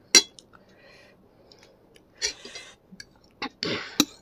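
Eating spicy instant noodles close to the mic: a sharp clink of a metal fork against the plate just after the start and again near the end, with chewing and short breathy mouth sounds in between.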